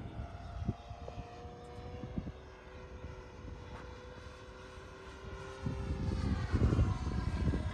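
FMS 1450mm P-51 Mustang electric RC model in flight, its onboard sound unit playing a simulated piston-engine drone over the motor and propeller. The sound grows louder from about five and a half seconds in.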